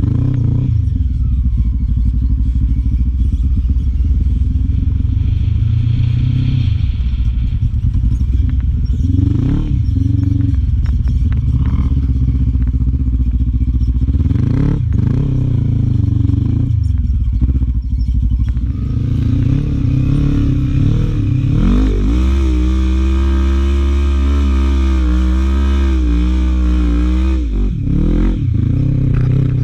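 Sport quad (ATV) engine, close to a helmet camera, revving up and down repeatedly as it is ridden over sand. For several seconds near the end the engine note holds steady before dropping again.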